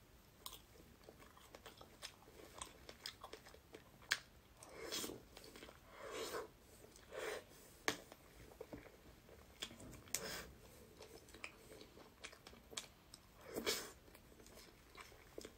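Close-miked eating of a strawberry and soft matcha cream cake: short bursts of wet chewing every second or two, with a few sharp clicks of the spoon against the plastic tub.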